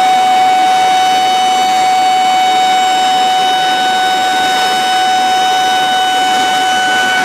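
Dam release warning siren holding one steady pitch, over the rushing of water pouring from the gates of a concrete arch dam.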